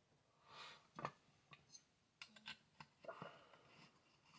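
Light clicks and taps of small screws and bolts being picked up and handled by hand on a towel-covered bench, a scattering of them with the sharpest about a second in.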